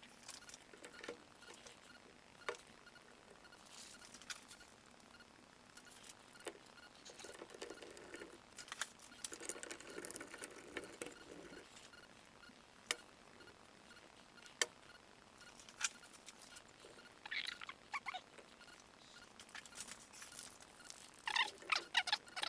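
Light clicks, taps and short scrapes of small wooden parts being handled and fitted together during a glue-up, irregularly spaced, with a quick run of clicks near the end.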